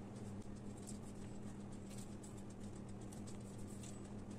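Faint, light pattering ticks of sesame seeds being pinched and sprinkled by hand onto unbaked cookie dough on parchment paper, over a steady low hum.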